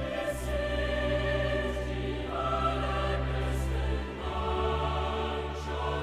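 Background music with sustained choral voices; the chord changes about every two seconds.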